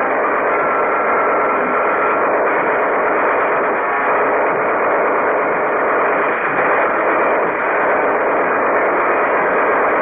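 Cartoon sound effect of a giant robot's machinery: a loud, steady, dense mechanical din with no pauses, on a thin, old film soundtrack.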